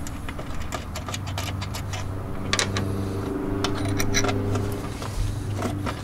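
Light metallic clicks and clinks of hand tools and fittings being handled, scattered irregularly over a steady low hum.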